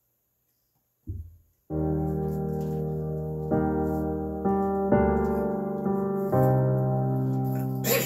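Slow electric piano chords of a backing-track intro, held and changing every second or so, starting a little under two seconds in after a brief low thump.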